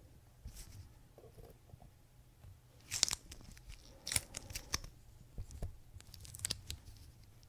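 Small watchmaker's tools clicking and scraping on the steel parts and plate of an E. Howard Series 5 pocket watch movement as the intermediate setting gear's screw is undone and the gear lifted away. Sharp clicks, loudest in a cluster about three seconds in, with a few more over the next few seconds.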